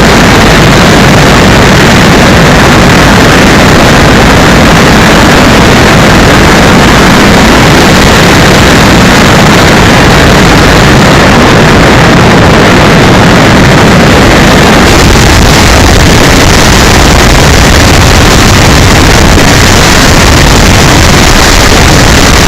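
Electric RC plane's brushless motor and propeller running, mixed with wind rush, picked up by an onboard keychain camera's microphone and overloaded into steady, distorted noise.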